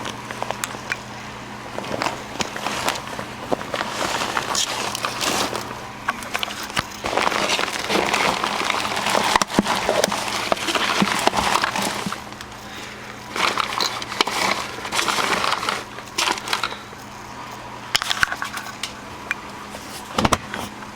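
A full vacuum cleaner bag is handled and thrown away, crinkling and rustling in irregular bursts over a faint steady low hum.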